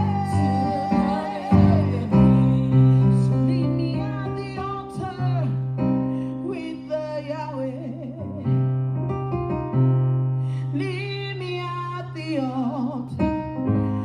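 Worship music: a keyboard playing long held bass notes and chords, with a singer's voice over it.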